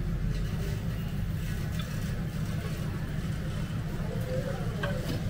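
A steady low rumble, with faint voices in the background.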